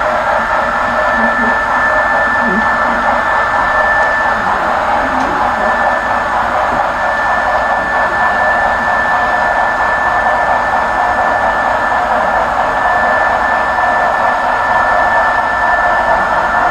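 HO-scale model freight train running: a steady whir of wheels rolling on the rails, with a steady high whine over it.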